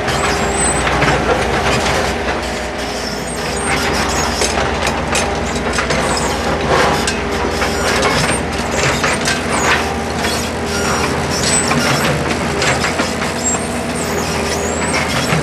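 Engine of a construction machine running steadily under a continuous, irregular clatter and scraping of tools and material as a railway level crossing is broken up.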